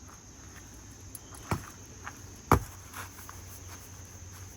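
Two sharp thumps about a second apart, the second louder, with a few fainter knocks between and after, over a steady high drone of insects.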